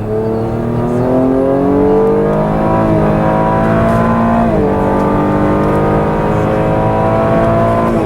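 2018 Holden Commodore's V6 engine accelerating hard, heard from inside the car: the engine note climbs steadily, drops at an upshift about halfway through, then climbs again before another upshift at the end.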